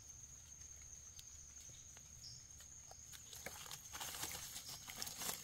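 Faint scraping and rustling of a small knife working in soil and dry leaf litter as a mushroom is dug out, busier in the last couple of seconds. Behind it a steady high insect drone.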